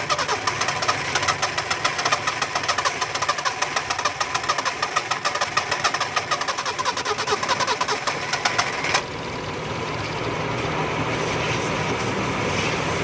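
Four-cylinder car engine cranking on the starter with a fast, even chugging rhythm for about nine seconds, then catching abruptly and settling into a steady idle. It is the engine being started after water from a pressure wash got into its ignition and stopped it starting.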